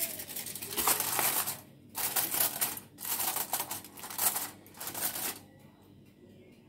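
Aluminium foil crinkling as it is spread over a clay tagine pot and pressed down around the rim, in four bursts of crackling over about five seconds, then it goes quiet.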